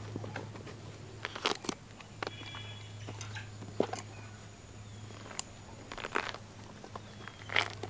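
Thick pomelo rind being pulled and pried off the fruit by hand: scattered crackles and sharp snaps as the peel tears and separates, over a steady low hum.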